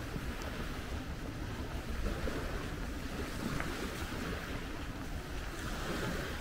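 Wind buffeting the microphone as a fluttering low rumble, over a steady hiss of open-air ambience.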